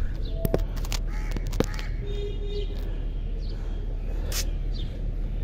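A few sharp clicks and knocks in the first couple of seconds as the phone is handled and set down on the concrete, then bird calls, a crow cawing and a few short chirps, over a steady low rumble.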